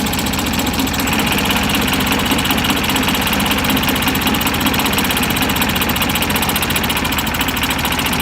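Small lawn mower engine fed by a Geet reactor on a water, oil and gasoline mix, running steadily at a low throttle setting with a fast, even pulse. About a second in its sound turns brighter and hissier, and it holds there. It doesn't run perfect on this fuel.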